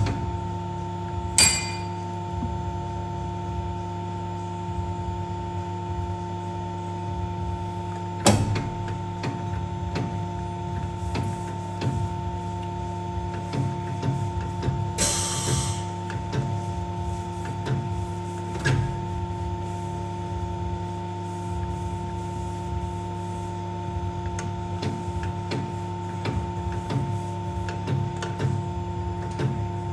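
Uniflex crimping press running with a steady, many-toned hum while it crimps a new rubber sleeve onto an air spring's metal cup, with a few sharp clicks and a short hiss about halfway through.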